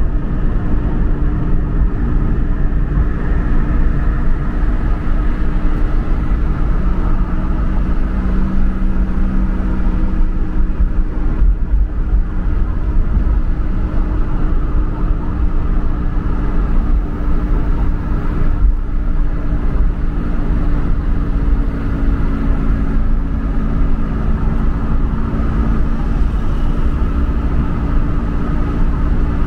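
Steady rumble of a motor vehicle with a constant humming drone.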